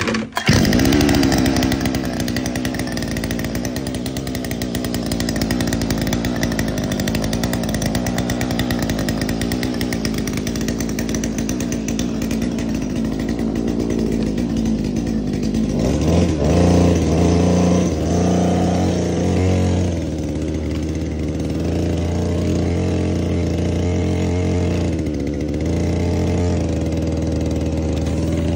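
Small pull-start two-stroke petrol engine of a mini go-kart, run on premixed fuel and oil, catching right at the start and then running as the kart is driven. About halfway in its note turns fuller and lower.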